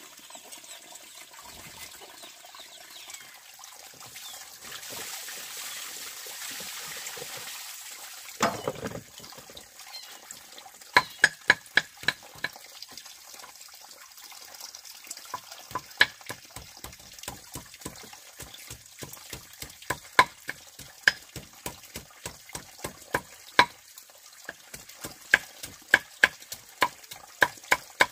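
Water running for several seconds, then sharp, irregular knocks, one to three a second, from food preparation in a kitchen.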